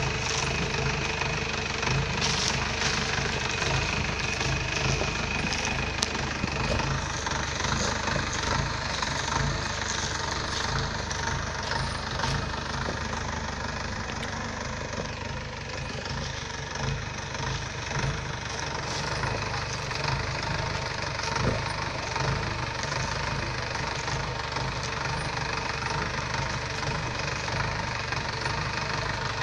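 Mahindra jeep's engine running at low speed as the four-wheel-drive jeep crawls over a loose rocky track, with a few sharp clicks along the way.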